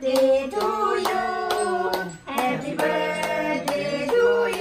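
Several people singing a birthday song together, with hands clapping along in a steady beat.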